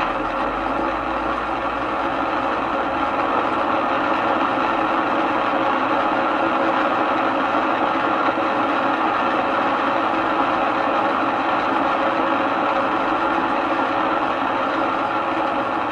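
Radio Shack DX-302 shortwave receiver's loudspeaker giving a steady hiss of static in AM mode, with no station coming through.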